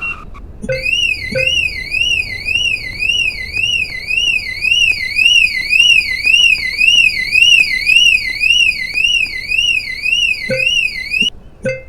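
Electronic panic alarm from an RC car's sound unit: a loud tone warbling up and down about twice a second. It starts about a second in and cuts off near the end, with clicks as it starts and stops.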